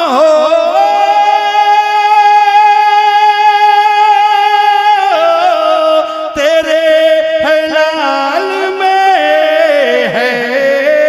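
A man's voice singing a naat solo, with no instruments: one long held note for about five seconds, then a run of ornamented, wavering notes.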